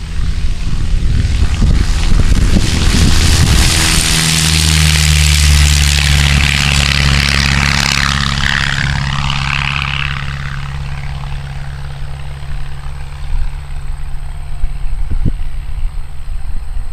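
Van's RV-7A single-engine propeller plane at takeoff power, rolling past on the runway and lifting off. The engine and propeller sound swells as it passes, then fades steadily as the plane climbs away.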